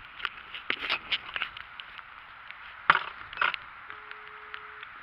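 Knocks and scrapes of a hand-held camera being handled, loudest about three seconds in; near the end, one steady beep about a second long, the ringing tone of an outgoing phone call.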